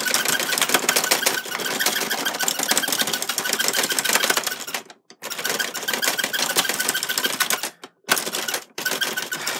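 Rapid plastic clattering as the buttons of a Puppy Racers toy game are mashed as fast as possible. Each press drives the gear-rack track that moves the toy pups forward. The clicking breaks off briefly about five seconds in and again near the eight-second mark.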